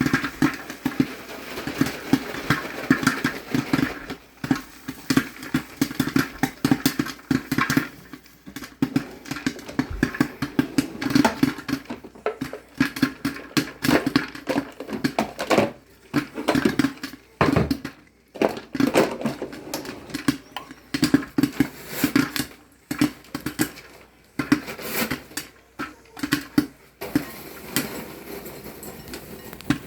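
Popcorn kernels popping in rapid, irregular pops over a steady low hum. The pops thin out somewhat near the end.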